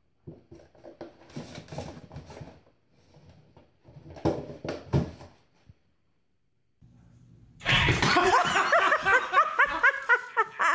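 Scattered light knocks and scrapes of a cardboard tissue box as a cat with its head stuck in it moves and bumps about on a hard floor. About eight seconds in, loud, continuous laughter starts.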